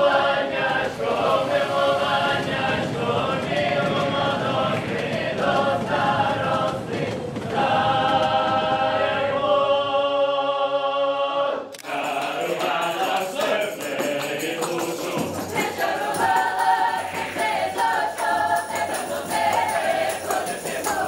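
Ukrainian folk ensemble singing in several voices. The song breaks off suddenly about twelve seconds in, and a livelier song with jingling percussion takes over.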